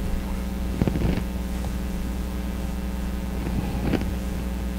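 Steady low hum of room tone, with two faint brief noises, one about a second in and one near the end.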